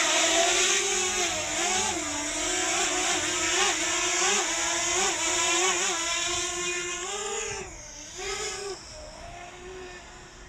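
DJI Mavic Mini quadcopter's propellers spinning up for takeoff with a steady whine. The pitch wavers up and down as the drone holds itself in strong wind. The whine dips about three-quarters of the way through, comes back briefly, then fades as the drone climbs away.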